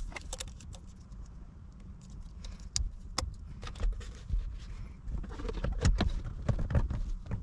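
Scattered small clicks and rattles of hands working plastic parts and wiring: the wire plugs being fitted to the replacement steering-wheel airbag module.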